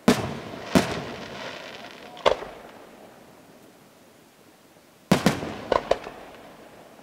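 Aerial firework shells bursting: three sharp bangs in the first two and a half seconds, each dying away in a rumbling echo, then a quick cluster of four bangs about five seconds in.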